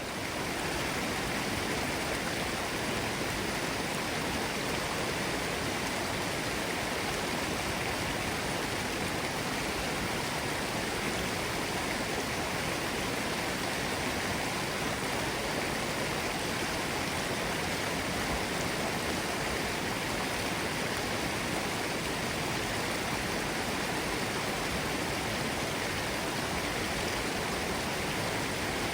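Forest stream running over rocks: a steady, even rush of flowing water.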